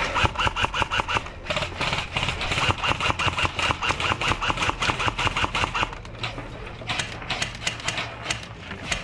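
Airsoft electric gun firing on full auto: a long stream of rapid, evenly spaced shots for about six seconds, then another burst near the end.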